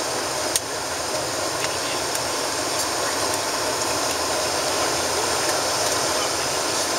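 Steady cabin noise of an Embraer ERJ-145 regional jet on the ground, its engines running at idle under the hiss of the cabin air. There is one short click about half a second in.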